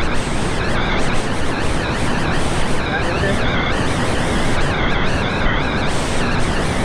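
Whitewater rapid rushing: a loud, steady roar of water pouring over a drop.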